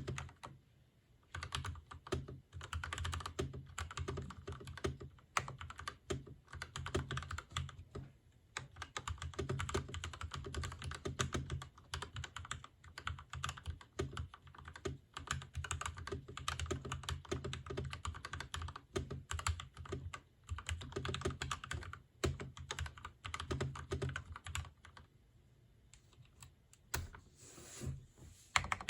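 Typing on a Gamakay LK67 mechanical keyboard with linear Gateron Yellow switches, Shushi keycaps and stock stabilizers: fast, continuous keystroke clacking in long runs, with a short pause about eight seconds in and a longer lull near the end before it picks up again.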